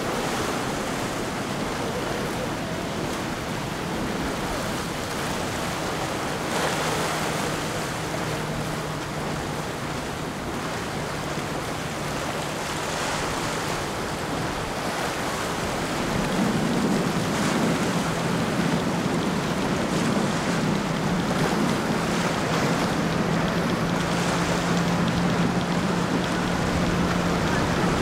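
Ocean waves breaking and surf washing, with wind on the microphone. A boat's engine drones steadily underneath, getting a little louder about halfway through.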